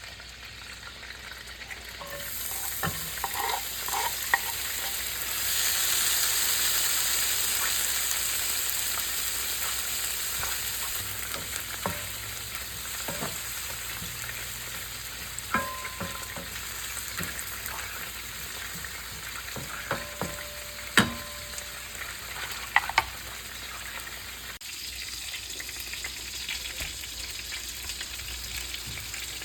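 Plum tomatoes, shallots and cilantro sizzling as they stir-fry in hot olive oil in a pan. The sizzle swells sharply about two seconds in, then slowly settles. Scattered short clicks and knocks of stirring against the pan come through it, the sharpest near the end.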